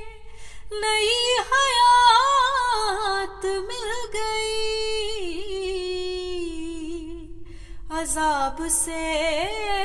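A woman's solo voice singing an Urdu devotional kalam unaccompanied, drawing out long notes that waver and glide in pitch. She breaks off briefly just after the start and again about three-quarters of the way through, then comes back in with the next sung word near the end.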